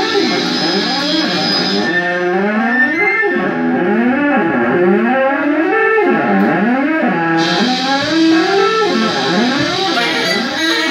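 Live band music with electric guitar playing notes that keep bending and sliding up and down in pitch.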